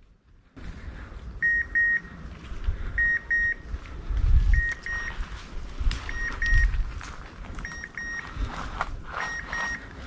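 Electronic double beeps from a hunting dog's beeper collar, a pair roughly every second, sounding steadily. Low wind rumble and brush rustling run underneath.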